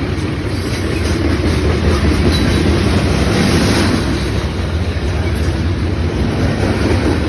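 Norfolk Southern freight train rolling past close by: a steady, loud rumble with wheels clattering over the rail joints, loudest about two to four seconds in.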